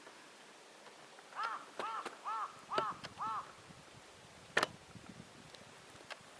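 A crow cawing five times in quick succession, each caw short and arched, followed about a second later by a single sharp click.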